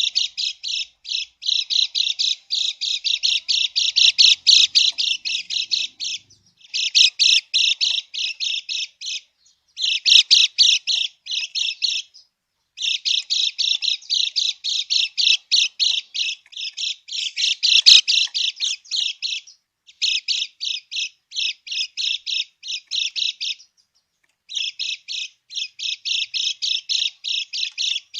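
Kecial kuning, a yellow white-eye, giving its harsh 'krekek' chatter: rapid rows of rasping notes, about four or five a second, in bouts of several seconds broken by short pauses.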